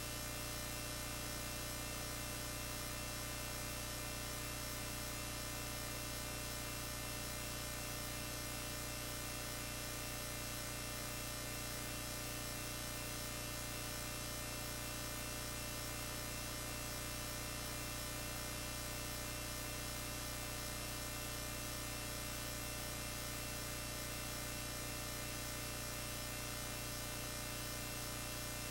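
Steady electrical mains hum with a buzz of many evenly spaced overtones, unchanging throughout, with no other sound over it.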